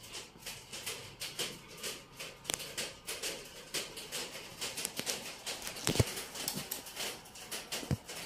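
Irregular light clicks and knocks of audio cables and jack plugs being handled and plugged in, with two sharper thumps about six and eight seconds in.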